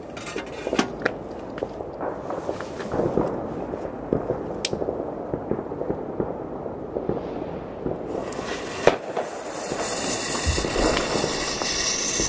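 Scattered pops and crackles of fireworks going off in the distance, with one sharper bang about nine seconds in. In the last few seconds a rising hiss builds as the lit Weco Silver Hawk rocket's fuse burns down and its motor starts spraying sparks.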